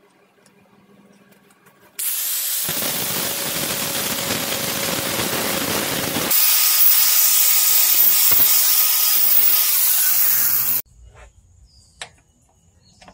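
Compact Bosch angle grinder with a small cut-off disc cutting through steel: a loud, dense grinding noise that starts abruptly about two seconds in, grows louder and sharper about halfway through, and stops suddenly near the end. A light click follows.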